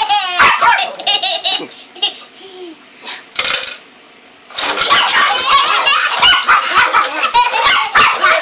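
A toddler laughing and squealing: a burst of giggles at the start, a quieter lull, then continuous laughter from about halfway on.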